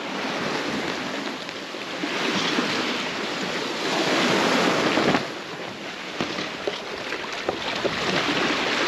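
Wind buffeting the microphone over the rush of sea water along a sailboat's hull as it runs downwind, swelling and easing, with a few light clicks in the second half.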